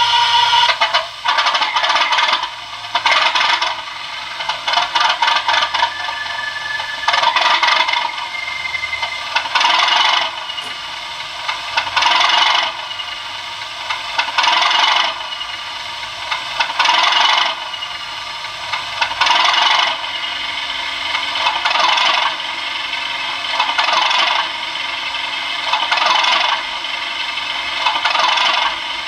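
Sound-fitted OO gauge Class 37 model: an ESU LokSound V4 decoder plays a South West Digital recording of the English Electric 12CSVT diesel idling, through the model's small speaker. It is thin, with little bass, and swells in a regular beat about every two and a half seconds.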